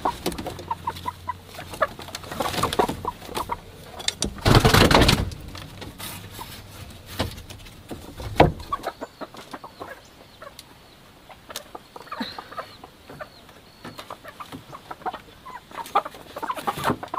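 Hens clucking around a nest box while straw nesting material rustles and crackles under a hand picking up eggs. There is a loud burst of noise about five seconds in.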